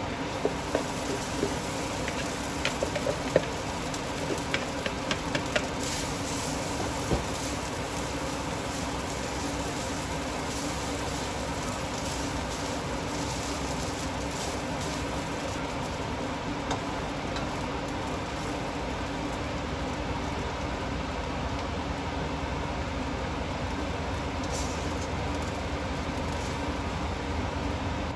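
Fried rice being stir-fried in a nonstick wok: a plastic spatula scrapes and taps against the pan over a steady hiss and hum. The taps come mostly in the first several seconds, as the rice goes in and is broken up.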